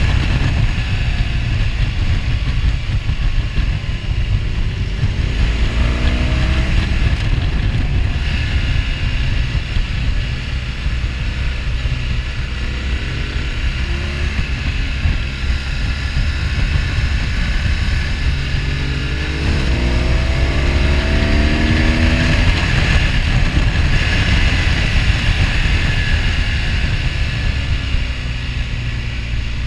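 A BMW R1200GS Adventure's boxer-twin engine heard from the rider's seat under heavy wind noise on the microphone. Its revs rise as it accelerates, about six seconds in and again about twenty seconds in.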